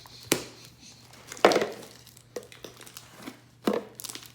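Fluffy homemade glue slime worked by hand, giving a few sharp crackling pops and squelches as it is stretched open and air pockets in it burst.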